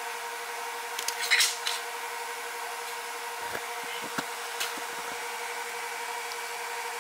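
Sheet of paper rustling briefly as it is handled and laid down, about a second in, followed by a few light taps. A steady hum with a faint constant tone runs underneath.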